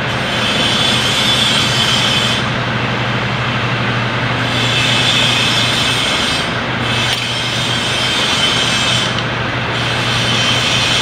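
Steady machinery noise with a constant low hum, running at an even level throughout.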